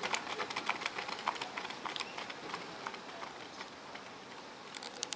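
Scattered clapping from spectators, thinning out after about three seconds, over faint crowd noise in an athletics stadium.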